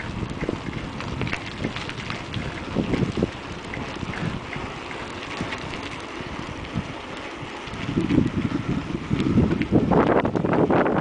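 Wind buffeting the microphone while moving along a stony dirt track, with scattered crunches and knocks from the rough ground and handling. The buffeting grows louder and gustier near the end.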